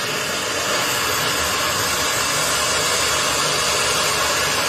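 Cutting torch hissing steadily as it burns through a truck U-bolt, a little louder about a second in.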